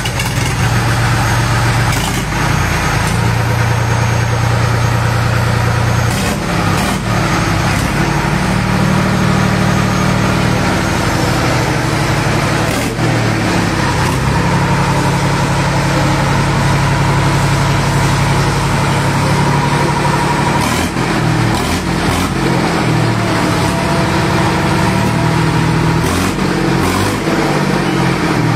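Deutz three-cylinder diesel engine running steadily, its low pitch stepping up and down a few times as the engine speed changes, with a few short knocks.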